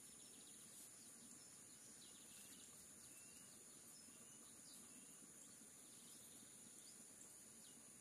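Faint pondside ambience: scattered short bird chirps and calls over a steady, high-pitched insect drone.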